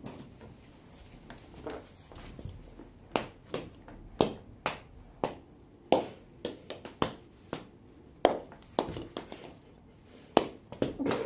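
A series of short, sharp taps or clicks, about two a second and uneven in loudness, starting about three seconds in.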